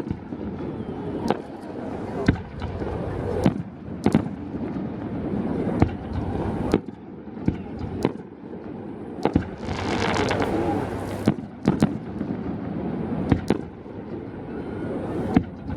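Fireworks bursting overhead: about a dozen sharp bangs at irregular intervals, with a longer hiss lasting over a second around ten seconds in, over the murmur of crowd voices.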